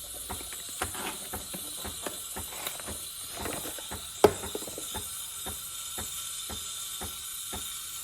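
Breville espresso machine's steam wand hissing while the machine clicks steadily, about three times a second, with one sharper knock about four seconds in; the steam is flowing again after the clogged wand was cleared.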